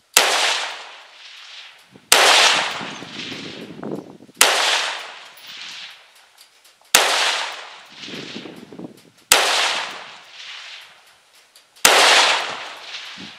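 AR-style rifle fired six times, one shot every two to two and a half seconds, each report trailing off in a long echo.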